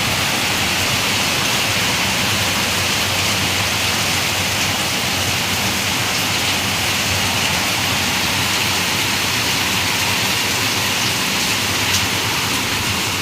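Heavy rain falling steadily in a tropical storm, a loud even hiss of rain on surfaces.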